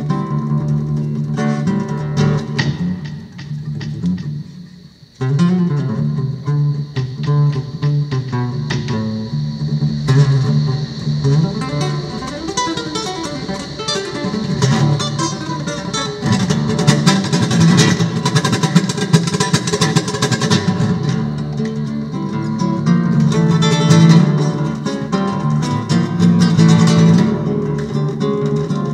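Solo guitar music with plucked notes over held low tones. It fades almost away about four to five seconds in, then comes back in full.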